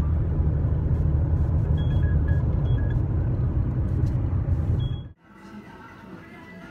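Low, steady road rumble inside a moving car's cabin, with a few faint short high tones partway through. It cuts off abruptly about five seconds in, leaving a much quieter background.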